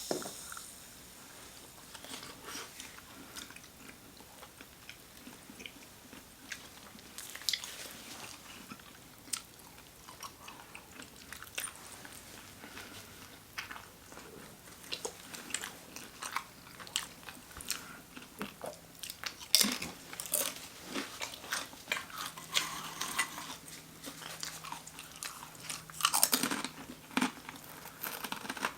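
Close-miked chewing and biting into a sandwich: irregular mouth clicks and crunches, with a few louder bites late on.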